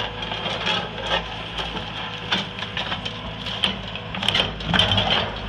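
Excavator bucket scraping and crunching through demolition rubble of broken concrete, foam blocks and dirt, with irregular sharp cracks, over the steady running of the machine's engine.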